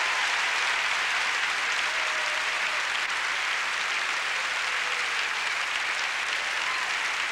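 Large theatre audience applauding, a dense, steady clapping that holds at one level throughout.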